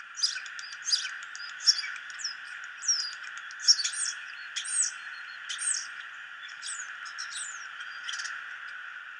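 Starling singing: a rapid, jumbled run of squeaky whistles, clicks and rising and falling chirps that stops about a second before the end.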